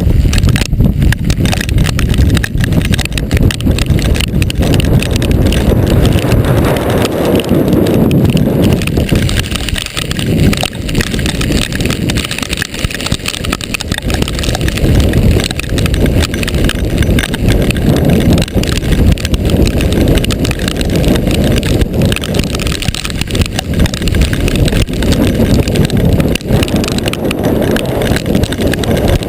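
Strong gusty wind buffeting the microphone in a hailstorm, the low rumble swelling and easing, with many small hailstone hits peppered through it.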